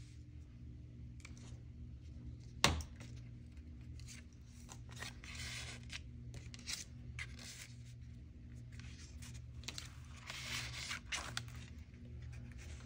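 Paper rustling and sliding as card tags are handled and tucked into paper pockets of a journal, in several short bouts. A single sharp tap sounds about two and a half seconds in, over a faint steady hum.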